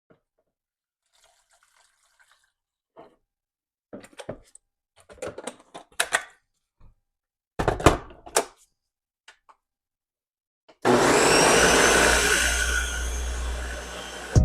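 A few knocks and clatters of things being handled, then an electric blender switched on about eleven seconds in, running loud with a whine that rises as it comes up to speed, blending mango for juice.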